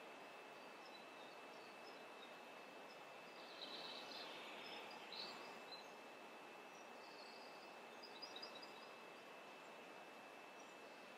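Near silence: room tone with a steady hiss and a faint thin high hum, with faint bird chirps from outside about four seconds in and again near eight seconds.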